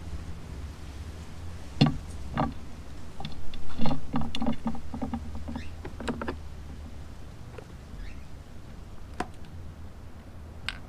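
Scattered knocks, clicks and rattles of hard objects being handled, with a busier run of rattling knocks in the middle, from the lithium battery and its plastic battery box being moved about and fitted.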